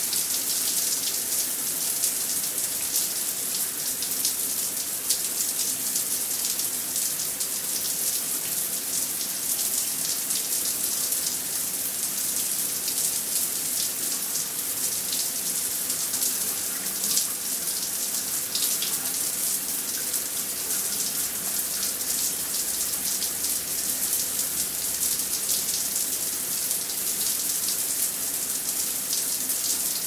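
Shower running: a steady hiss of water spray with fine spattering.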